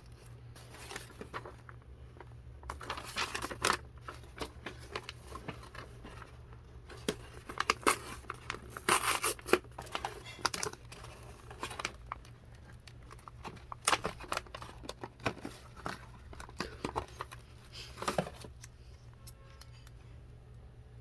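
Irregular crinkling, rustling and tearing of handled material, with scattered sharp taps and clicks in clusters, over a steady low hum.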